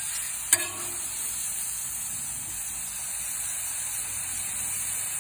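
Strips of steak sizzling on a hot flat-top griddle, a steady hiss. A metal spatula clinks once against the steel cooktop about half a second in.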